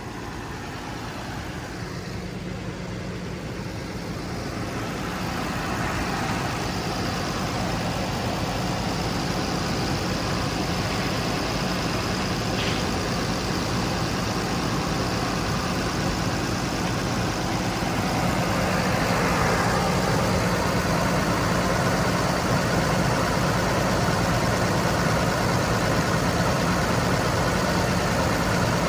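An engine idling steadily, getting louder about five seconds in and again about eighteen seconds in.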